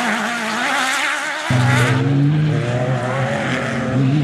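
Off-road racing buggy's engine revving hard, its pitch wavering. About a second and a half in, an abrupt cut brings in a second rally car's engine, running at steady high revs on a dirt track.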